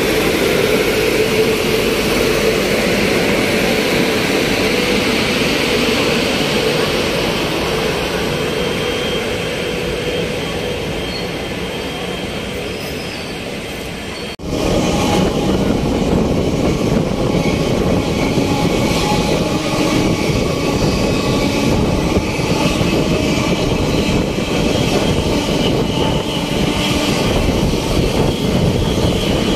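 ICF passenger coaches of an Indian express train rolling on the rails, heard from an open coach window as the train pulls out: a steady rumble of wheels on rail. About halfway through it drops out for a moment and comes back louder.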